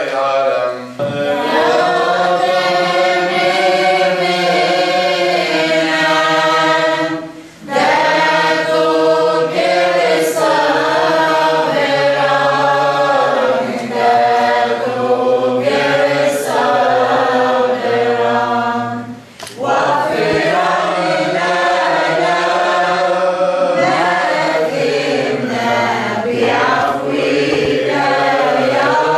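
Church choir with women's voices singing a liturgical hymn in long held phrases, breaking off briefly twice.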